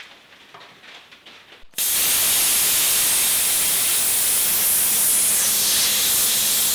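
Gas torch flame hissing steadily while heating hardened steel to cherry red to soften it for drilling. The hiss starts suddenly about two seconds in; before that it is quiet.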